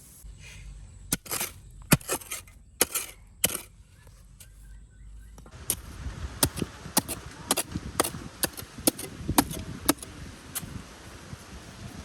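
A series of sharp strikes: four or five spaced blows in the first few seconds, then, after a change in the background about halfway through, a quicker run of strikes about twice a second.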